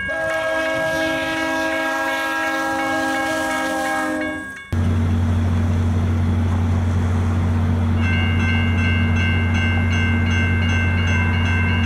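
A train horn sounds a held chord of several notes and is cut off sharply about five seconds in. A steady low rumble follows, and about three seconds later the railroad crossing warning bell starts ringing rapidly as the crossing signals activate.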